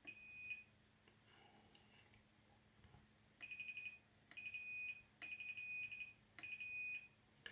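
Digital multimeter's continuity beeper sounding a steady high tone as the probe touches the capacitors in turn: one beep at the start, then after a pause four more, each half a second to a second long. Each beep means that capacitor is shorted to ground, a short on the AVDD power rail.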